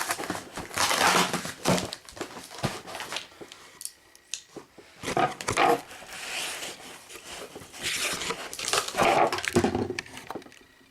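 A cardboard box being torn open by hand, its packing tape and cardboard ripping in several separate bursts.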